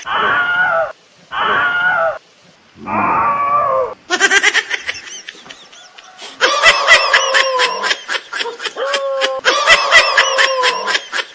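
A dog crying out in alarm: three short wailing cries in the first few seconds, then a long run of rapid, pulsing cries from about six seconds in.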